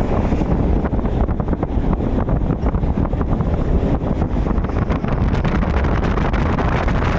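Passenger train running, heard from inside the carriage: a steady rumble with constant rattling and clicking, and wind buffeting the microphone.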